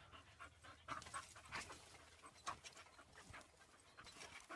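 A dog panting faintly.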